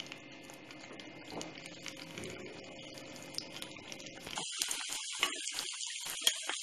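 Batter-coated cauliflower pieces dropped by hand into hot oil for their second fry, the oil sizzling faintly at first. About four seconds in, a much louder, dense sizzle with crackling takes over as the pan fills with bubbling pieces.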